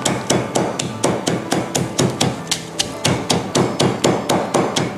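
Stone pestle pounding garlic cloves and black peppercorns in a stone mortar: a steady run of sharp knocks, about four a second.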